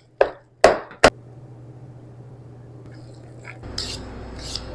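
Three sharp knocks of cookware in the first second, as a pot is covered to steam, then a steady low hum. About three and a half seconds in, the kitchen noise grows louder with short hisses.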